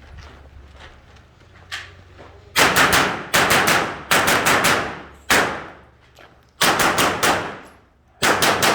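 Rapid gunfire: several quick strings of two to four sharp shots each, starting about two and a half seconds in, each shot leaving a short echoing tail.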